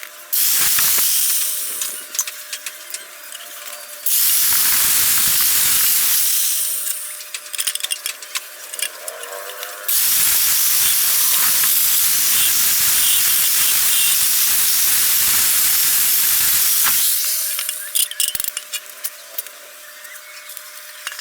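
Pressurised gas or air jetting out in a loud, steady hiss, in three bursts that each start and stop abruptly: a short one at the start, another about four seconds in, and a long one of about seven seconds from ten seconds in. Between the bursts there is fainter crackling and clicking.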